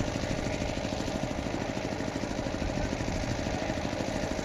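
An engine running steadily with a fast, even chug.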